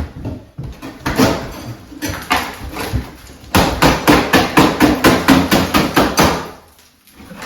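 Hammer striking during demolition: a few separate knocks, then a rapid run of blows, about five a second, for nearly three seconds, which stops suddenly.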